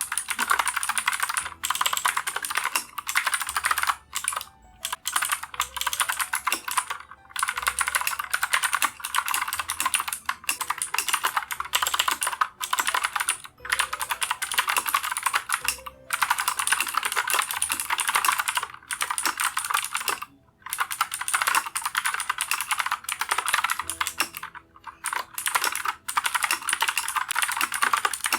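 Keychron K10 full-size mechanical keyboard with clicky Gateron Blue switches being typed on fast and continuously. The rapid key clicks stop briefly every few seconds.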